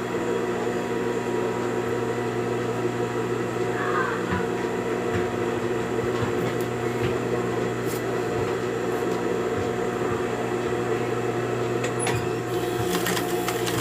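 Electric sewing machine running steadily, basting a long-stitch seam through layered tulle and organza, with a few clicks near the end.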